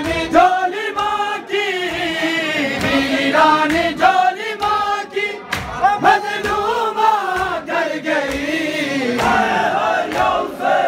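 A group of men chanting an Urdu noha (lament) together in unison, with sharp slaps of chest-beating (matam) sounding through the singing. Near the end the drawn-out melody gives way to short, repeated chanted syllables about twice a second.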